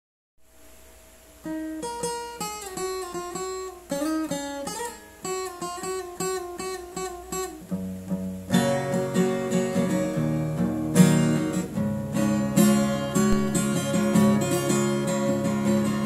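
Acoustic guitar playing a song intro: a melody of single picked notes, then fuller chords with a bass line from about halfway through.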